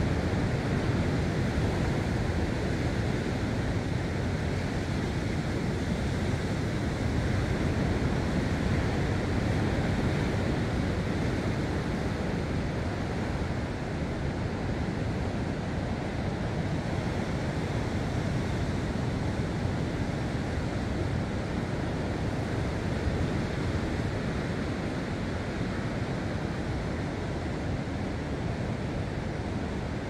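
Sea surf breaking on rocks below the headland: a steady, low rushing wash of waves.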